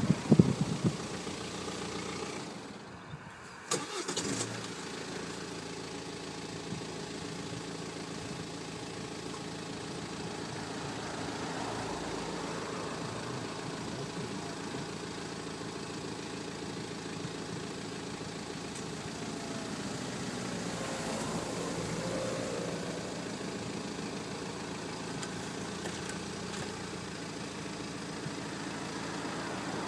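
Car engine running steadily with road noise, heard from inside the moving car through the open passenger window. The sound dips briefly a few seconds in, with a single click, then holds steady.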